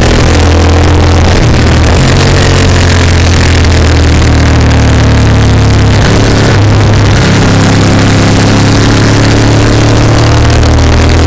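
Loud motorcycle engine pulling hard on a race track, with heavy wind rush over the onboard microphone. The engine pitch steps up and down a couple of times with throttle and gear changes.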